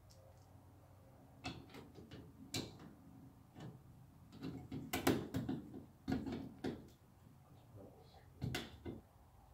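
Screwdriver tightening screws on a plastic thermostat base: scattered faint clicks and small knocks of the tool on the screws and plastic, coming every second or so.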